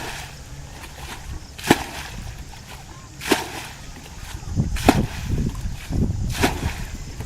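Four sharp slaps on water, evenly spaced about a second and a half apart, with water sloshing between the later ones.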